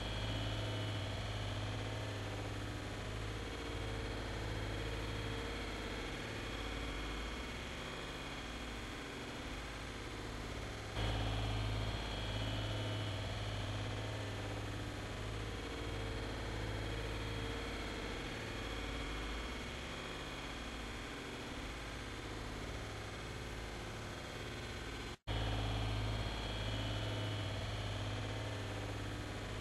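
Steady recording hiss with a low electrical hum and no other events, cut off completely for an instant about 25 seconds in.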